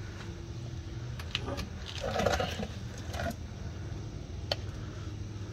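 Light metal clicks and clinks of a bolt and steering knuckle being refitted on a UTV's front suspension, with a short scraping clatter about two seconds in.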